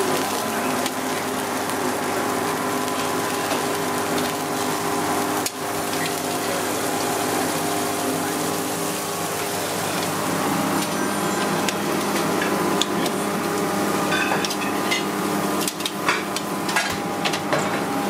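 Steaks sizzling on a hot griddle and grill: a steady hiss over a steady hum, with a few sharp metal clicks in the second half as tongs work the meat.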